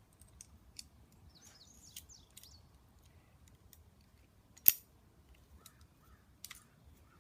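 Small metal parts of a 1911 pistol being handled and fitted together: faint scattered clicks and a short scrape, with one sharp metallic click a little past halfway.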